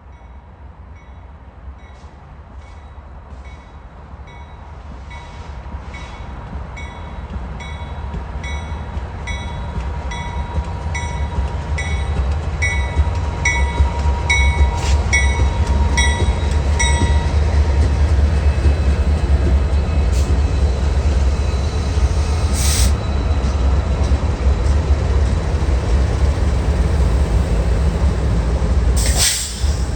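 Diesel freight locomotives' engines rumbling as they draw near, growing louder through the first half and then holding steady. A bell rings about every 0.6 seconds and stops about halfway through, and two short sharp noises come near the end.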